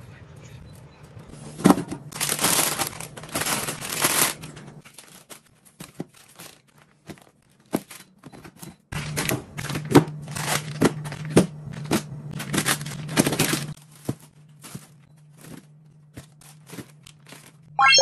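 Plastic food packets crinkling and rustling as they are handled and packed into a refrigerator drawer, in two spells of handling, with light knocks of plastic containers between and after. A steady low hum runs underneath.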